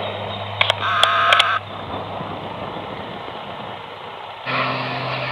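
Propeller aircraft engine drone as a light plane flies low, steady with a low hum, broken about a second in by a few sharp clicks and a short high tone. The sound changes abruptly near the end to another aircraft's steady engine drone.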